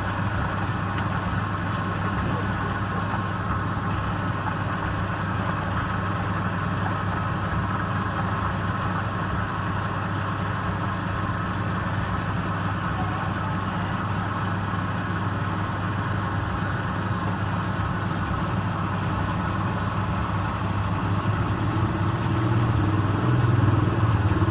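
Steady mechanical hum of an electric motor running without a break, typical of a wood lathe turning, growing a little louder near the end.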